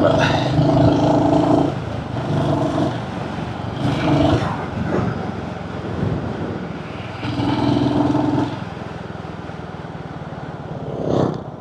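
Royal Enfield Hunter 350's single-cylinder engine running while the motorcycle is ridden, over steady wind and road rush. The engine note comes up in several spells of a second or so and drops back between them.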